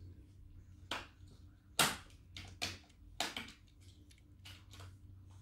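A handful of faint, sharp clicks and rubs, about six spread over a few seconds, from a small diecast toy car being turned over in fingers close to the microphone.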